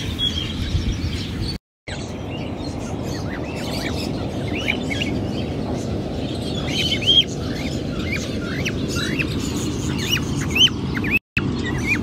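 A mixed flock of small aviary birds, finches and cockatiels, chirping: a continual scatter of short chirps over a steady low background hum. The sound cuts out briefly twice, near the start and near the end.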